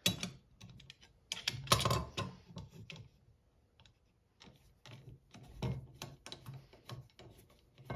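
Light metallic clicks and knocks of a Bosch RA1054 router guide being assembled by hand on a wooden workbench, as its metal rods are seated in the guide body and its locking knobs tightened. A denser run of clicks comes about two seconds in, then scattered single clicks.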